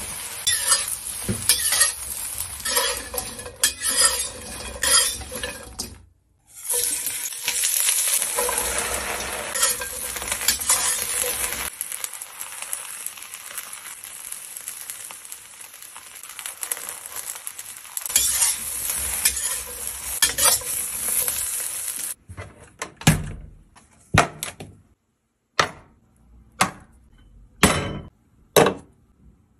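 Cubes of steamed bun frying and sizzling in hot oil in a wok, stirred with scrapes and knocks against the pan. The frying stops about 22 s in and gives way to a series of separate sharp taps about a second apart.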